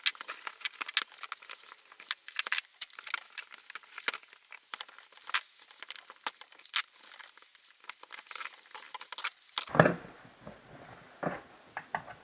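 Rubber tire bead of a Jenex V2 Aero 150 roller ski wheel being levered off its rim with flat-head screwdrivers: irregular crackling and clicking of rubber and metal. A louder knock comes near the end.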